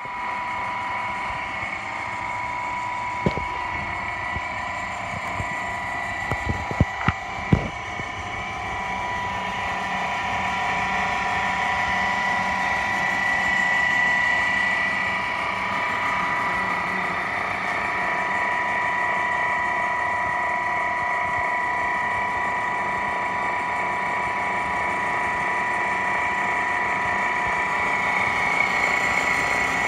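Industrial electric motors running steadily, a constant machine whine with two steady tones over a low hum. A few sharp clicks sound a few seconds in.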